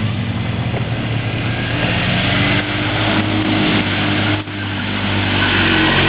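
ATV engine running under load, its pitch shifting a little with the throttle, with a brief drop in level about four and a half seconds in.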